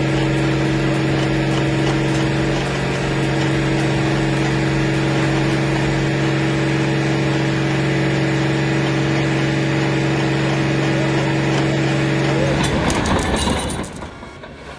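Heavy diesel engine of earth-moving machinery running steadily at constant speed, with a steady drone. Near the end the drone breaks up and the sound drops off sharply.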